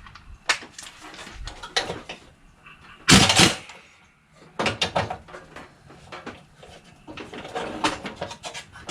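Metal tools and mower-deck parts being handled: scattered clicks and clinks, with a pair of heavy knocks about three seconds in.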